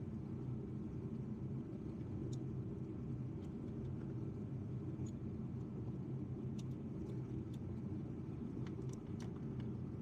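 Steady low background hum with a few faint, light clicks and taps scattered through it, more of them toward the end, from small tools and parts being handled.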